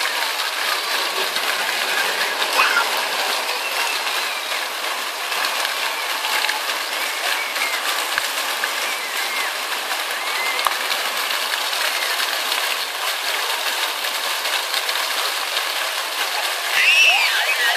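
Splash-pad fountain jets spraying steadily, the water pattering on the paving, with faint children's voices behind it. Near the end a young child lets out a loud, high, excited squeal.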